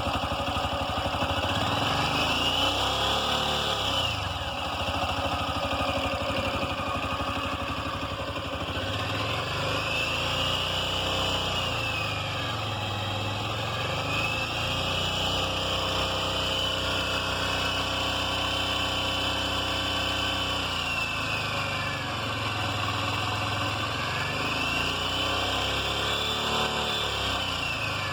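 Bajaj Qute's 216 cc four-stroke, fuel-injected single-cylinder engine being revved four times. Each time its pitch rises over a few seconds and falls back toward idle.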